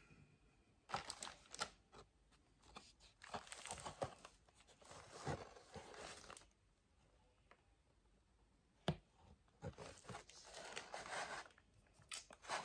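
Quiet handling of a cardboard doll box and its plastic packaging: bursts of rustling, crinkling and tearing, a lull past the middle, then a single sharp knock.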